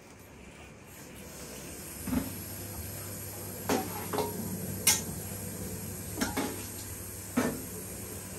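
Pots and kitchen utensils knocking and clinking: about seven sharp knocks spread over several seconds, over a steady low hum that begins about two seconds in.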